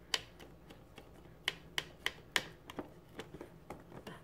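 A string of irregular sharp little clicks and taps, about a dozen, from a baby feeding in a plastic high chair: small mouth smacks and hands on the tray.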